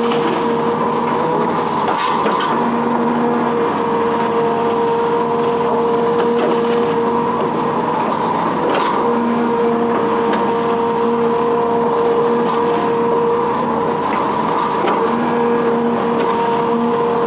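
Hitachi Zaxis 210F amphibious excavator's diesel engine running steadily while working, with a steady high whine over it. Two sharp knocks, about two seconds in and again about nine seconds in.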